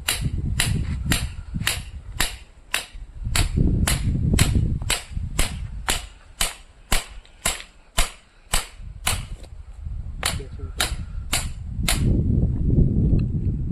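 Hammer striking metal parts of an oil expeller, steady sharp blows about two a second that stop near the end, over a low rumble.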